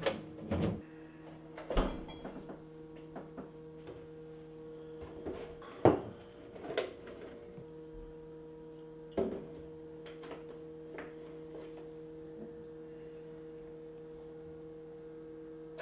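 A few short knocks and clunks of a plastic milk jug and a drinking glass being handled at a kitchen counter, over a steady low hum.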